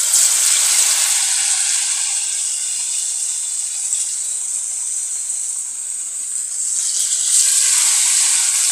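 Masala-coated murrel (snakehead) fish slices sizzling as they fry in hot oil in a steel kadai. The steady sizzle eases a little around six seconds in and swells again about seven seconds in as another slice goes into the oil.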